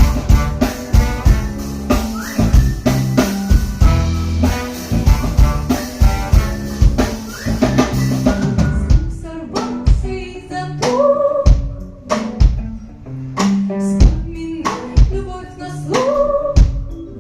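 Song with a steady drum-kit beat and a sung or lead melody line.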